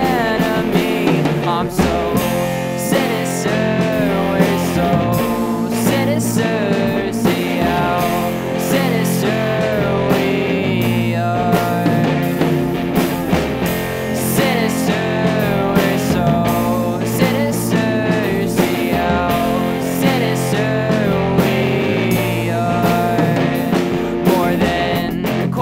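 A self-written rock song by a small band: guitar and drums playing a steady beat, with a voice singing over them.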